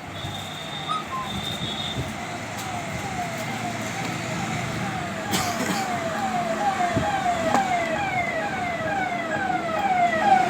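An electronic siren sounding in quick repeated falling sweeps, about two and a half a second, growing steadily louder. A short high beep comes in the first two seconds, and a sharp click about halfway.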